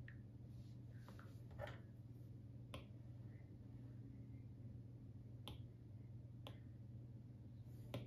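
Faint, scattered sharp taps of a stylus tip and fingertips on a tablet's glass screen, about five in all, over a steady low hum.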